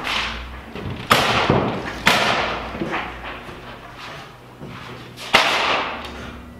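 Wooden boards knocking and clattering as they are set down on a table saw's table: several sharp knocks, the loudest about one, two and five seconds in, each ringing out in a large echoing room.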